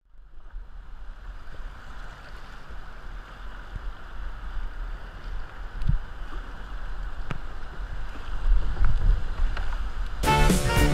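River water rushing over rapids as heard from a kayak, a steady roar that grows louder as the rapids near, with a few sharp knocks and a low rumble. Music begins near the end.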